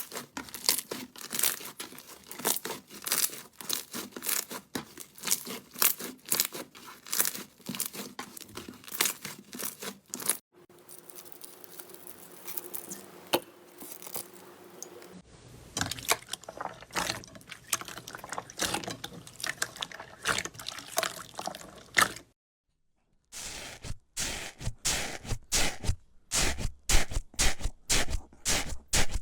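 Slime being squeezed, pressed and stretched: rapid sticky popping and crackling, in several short clips one after another, with a brief silent break about three quarters of the way through.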